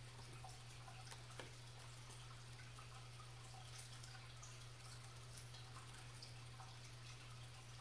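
Near silence: a steady low hum, with faint scattered ticks and one slightly sharper click about a second and a half in.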